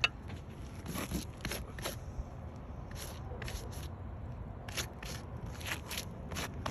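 Irregular light scrapes and clicks, a few each second, with no steady sound behind them.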